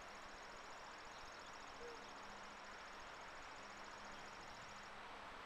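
Faint outdoor ambience: an insect trilling in rapid high-pitched pulses over a steady hiss, the trill stopping near the end.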